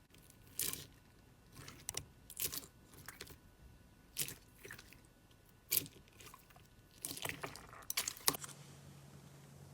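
Slime being squeezed and poked, giving irregular sharp crackles and pops, with a denser run of crackles near the end. A low steady hum comes in shortly before the end.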